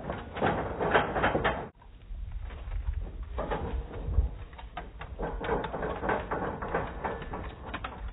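Running feet of a dog and its handler on an agility course: irregular quick patters and thuds, with a low rumble beneath.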